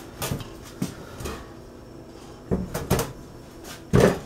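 Cookware knocking and clunking on a stovetop: a silicone spatula scraping and tapping in a cast-iron pot of used frying oil, then pots being shifted. There are about half a dozen separate knocks, and the loudest clunk comes near the end as a pot is set down.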